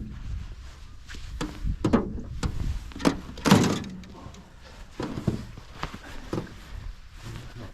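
Scattered knocks and thumps in a small fishing boat, irregularly spaced, with the loudest thump about three and a half seconds in.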